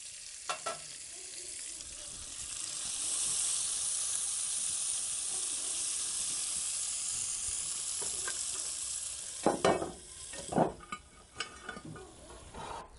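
Sliced onions sizzling in hot rendered bacon fat in a 10-inch cast iron Dutch oven while being stirred with tongs; the sizzle swells about two seconds in and holds steady. Near the end come a few sharp knocks of the tongs against the pot.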